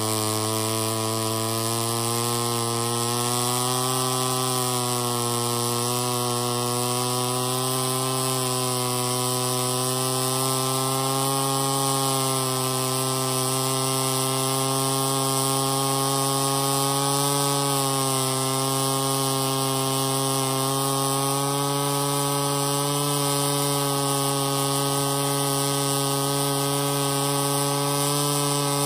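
Poulan 306 two-stroke power head of a Wright 100 reciprocating blade saw running at a steady speed, its pitch wavering slightly.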